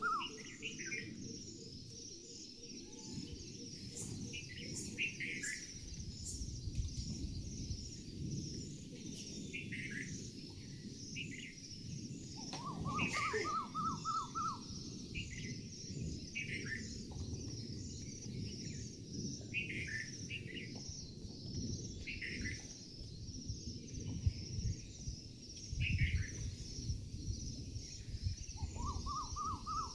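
Birds calling: a short run of quick notes rising in pitch, repeated about every fourteen seconds, with short downward-sliding calls in between. A steady high pulsing trill, like insects, and a low rumble run underneath.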